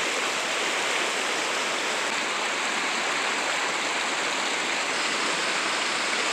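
Mountain creek rushing over rocks and small cascades, a steady rush of water.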